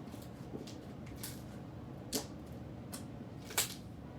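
Slime being stretched and pressed in the hands, giving about five scattered short clicks and pops, the loudest one about three and a half seconds in.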